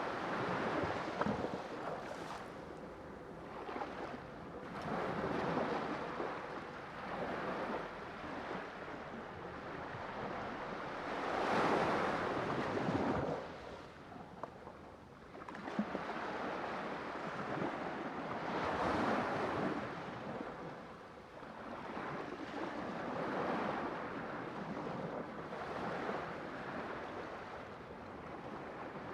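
Sea waves surging and ebbing, a rushing noise that swells and fades every few seconds, the biggest swell about twelve seconds in.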